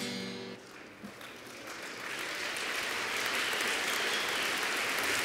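The last strummed acoustic guitar chord dies away, then a hall audience's applause builds over a couple of seconds and holds steady.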